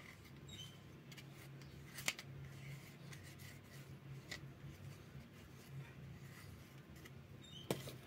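Faint handling noises as a new washing-machine drain pump is worked into its housing by hand: light rubbing and scraping with a few small clicks, the sharpest near the end.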